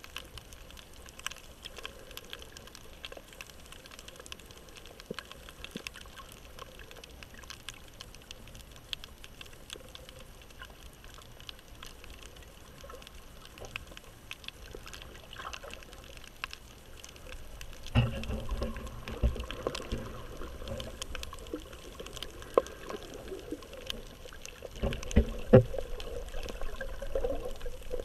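Underwater sound heard through a GoPro's waterproof housing: a faint steady crackle of scattered clicks, then from about 18 seconds in louder low rumbling and heavy thuds of water moving around the camera, strongest near the end.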